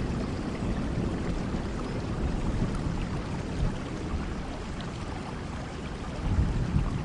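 Steady rainfall, an even hiss of falling rain, with a low rumble of thunder rising about six seconds in.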